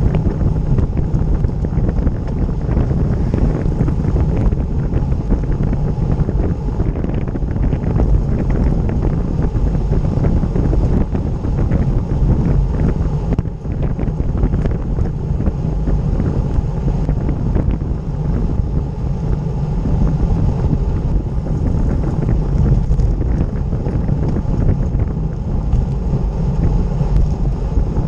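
Steady wind rush on the microphone of a camera mounted on a road bicycle riding at speed, mostly a low rumble.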